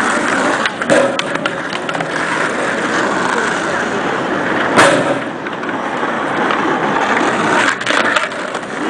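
Skateboards rolling and clacking on street pavement, with a loud sharp board impact about five seconds in and lighter clicks around a second in and near the end, over background chatter.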